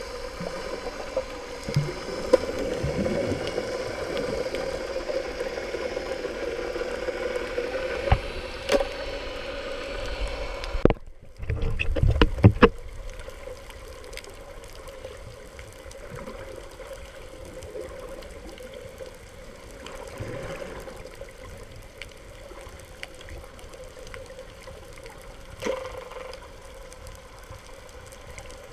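Underwater sound heard through a GoPro's waterproof housing: a muffled rush of water with a steady hum and scattered knocks. A brief dropout and a few sharp clicks come about eleven seconds in, after which it is quieter.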